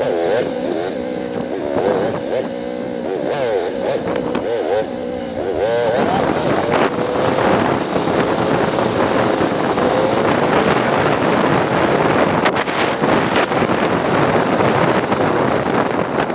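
Motorcycle engine running while riding, with wind rushing over the microphone, the audio sped up. For the first six seconds a wavering, voice-like warble rides over it; after that the engine holds a steady note.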